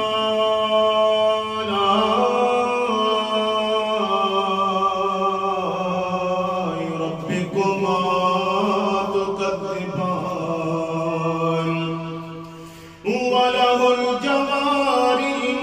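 A man's voice reciting the Qur'an in long, melodic held notes, with the vowels drawn out and ornamented. Near the end the voice fades and breaks off for a breath, then comes back in strongly.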